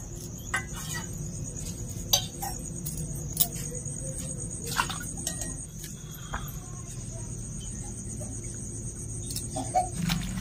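Crickets chirping steadily in the background, with scattered light clicks and taps of a knife and garlic skins on a steel plate as garlic cloves are peeled by hand.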